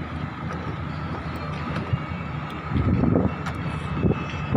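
Pongrass boat's engine running steadily at cruising speed, a low drone with a steady whine over it. A few louder rushes of water and wind noise come about three and four and a half seconds in as the hull runs through chop.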